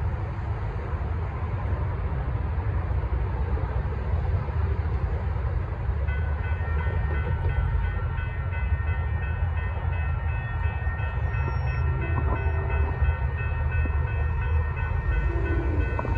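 Steady low rumble of traffic and outdoor noise. About six seconds in, a grade-crossing warning bell starts ringing, a rapid high repeating ding that keeps going.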